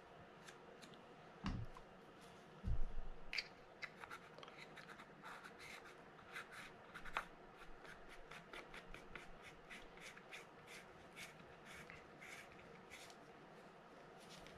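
Faint handling of a Shimano TLD15 reel spool as its cover is fitted back on and the assembly turned in the hands. Two dull bumps come in the first three seconds, then a run of light, irregular clicks and taps.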